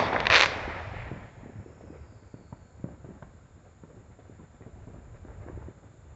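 Consumer fireworks going off: a loud crackling bang about half a second in that fades over the next second, then a few scattered faint pops.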